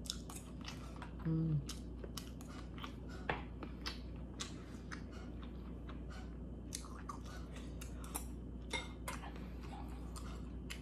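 Close-up chewing and mouth sounds of a person eating spoonfuls of chicken noodle soup: many small wet clicks and smacks, irregularly spaced. A short low hum comes about a second and a half in.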